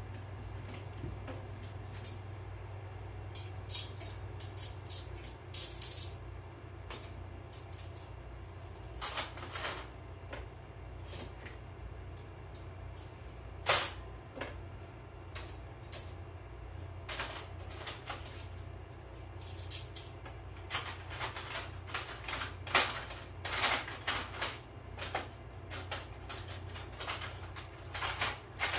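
Kitchen items and utensils being handled and set down on a countertop: irregular clicks, clacks and knocks, two sharper than the rest, one about halfway through and one later.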